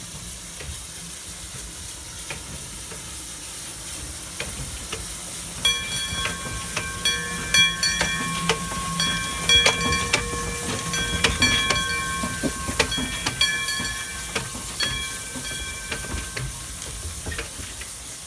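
1912 Baldwin-built steam tank locomotive No. 9 rolling slowly along the track with a steady hiss of steam. From about six seconds in come repeated sharp metallic clanks and ringing squeals of the wheels and running gear on the rails, dying away after about sixteen seconds.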